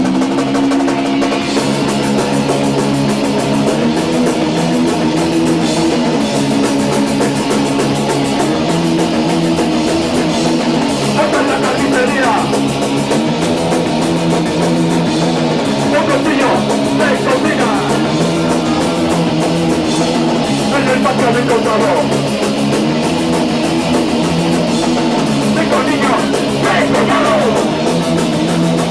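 Punk rock band playing live: guitar chords and a drum kit with crashing cymbals, loud and steady.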